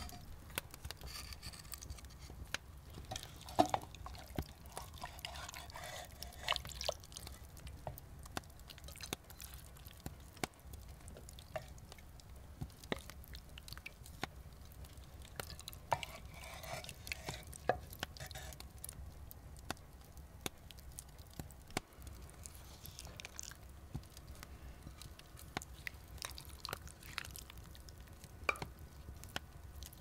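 Quiet cooking and serving sounds: scattered light clicks and knocks, with brief bouts of a wooden spoon scraping and clinking against glazed clay pots and plates.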